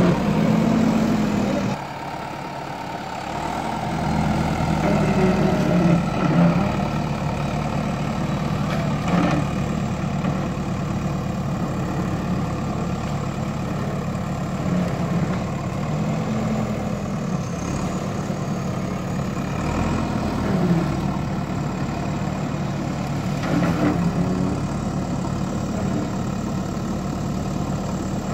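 Diesel engine of a JCB backhoe loader running steadily; the engine note drops about two seconds in and builds back up a couple of seconds later, then holds through small rises and falls.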